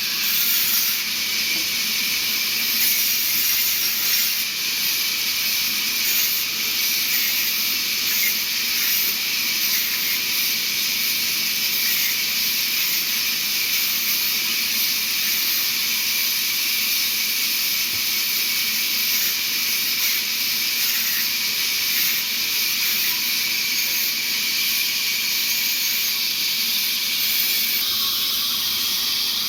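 Sawmill saw running: a steady high hiss that never pauses, its tone shifting slightly near the end.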